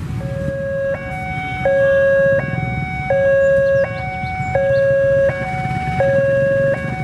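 Railway level-crossing warning alarm sounding an electronic two-note signal, a low and a high note alternating about every 0.7 s, warning that a train is approaching. The engines of waiting cars and motorcycles rumble underneath.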